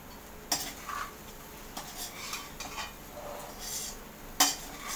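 Slotted steel spatula scraping and clinking against a kadhai while stirring poha (flattened rice) with vegetables, in a few irregular strokes, with a sharp knock of metal on the pan near the end.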